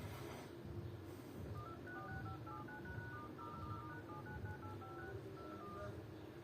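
Telephone keypad tones: a rapid run of short two-tone beeps at changing pitches, numbers being dialed on a phone's keypad. It starts about a second and a half in and stops shortly before the end, over a faint low hum.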